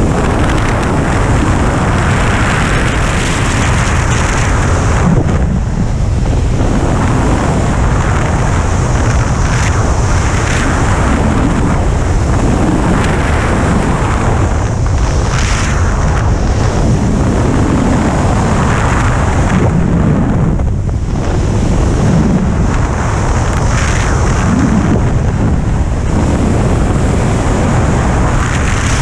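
Rushing wind buffeting an action camera's microphone during a fast, low speedflying descent, loud and steady with gusty swells every second or two.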